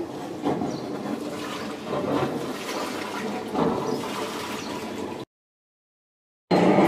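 Water churning and rushing in a ship lock chamber as it fills, with a few faint knocks. About five seconds in, the sound drops out to dead silence for about a second, then comes back as a louder, steady rumble.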